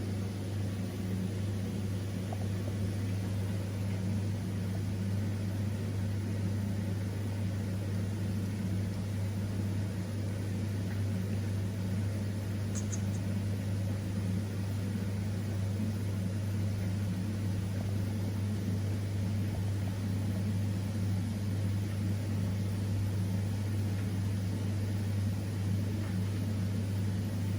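A steady low mechanical hum with a faint hiss, unchanging throughout, and two faint high ticks about halfway through.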